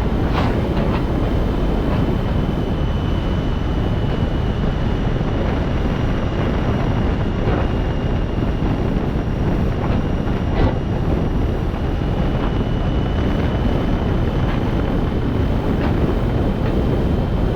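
Steady low rumble of a vehicle on the move, engine and road noise with some wind on the microphone, a faint steady high whine over it and a few light ticks.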